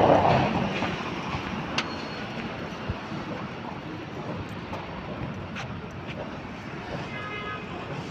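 Steady outdoor city background: a low, even rumble of distant road traffic, with a brief swell of hiss at the very start.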